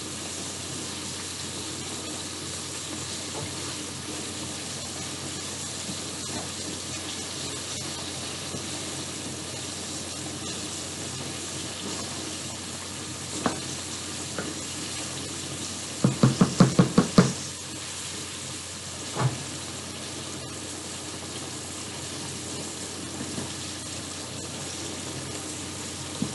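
Breaded cube steak frying in a pan of hot oil: a steady sizzle. About two-thirds of the way through comes a quick run of about seven knocks, with a single knock a few seconds before and another just after.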